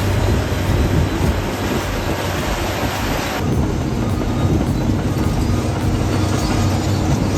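Heavy earth-moving machinery at work, the steady rumble of a bulldozer's diesel engine and tracks. The sound changes abruptly about three and a half seconds in, as one clip gives way to another.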